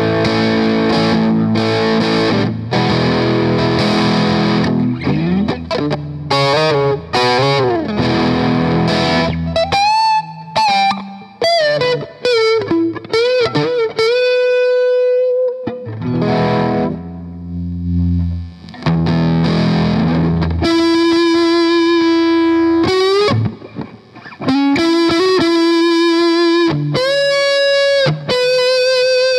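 Electric guitar played through a Boss BD-2 Blues Driver overdrive pedal, giving a distorted tone. It opens with dense strummed chords, then from about ten seconds in turns to single-note lead lines with bent notes and long held notes with vibrato.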